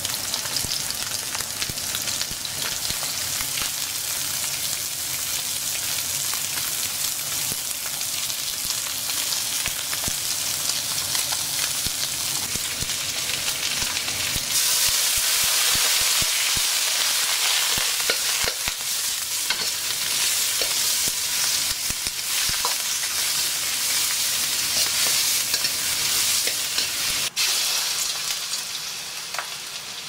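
Stir-frying in a wok: a steady sizzle of food in hot oil, with frequent light clicks and scrapes of the spatula against the pan. The sizzle gets louder and brighter about halfway through, and there is one sharper knock near the end.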